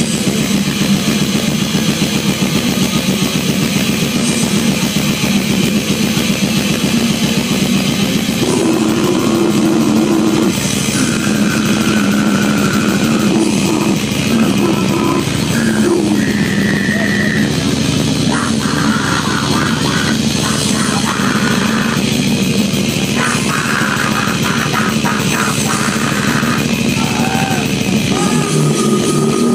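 A death metal band playing live: distorted electric guitar riffing over fast, dense drumming, loud and continuous, with a few held high guitar notes standing out.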